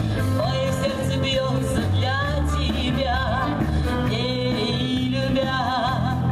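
Live dance music from a brass and variety band: a steady bass line under a melody that wavers in pitch.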